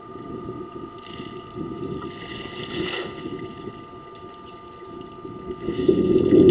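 African elephants splashing water at a waterhole: one throws a trunkful of water that lands with a loud splash near the end, after softer splashing about a second and three seconds in. Small birds chirp faintly.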